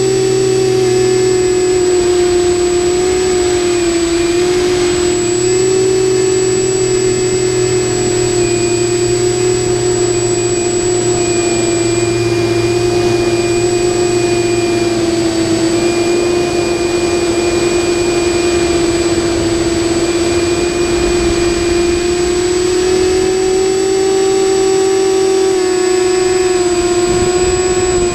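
TBS Discovery Pro quadcopter's electric motors and Graupner propellers whining steadily in flight, the pitch wavering slightly with throttle, as picked up by the camera mounted on the craft.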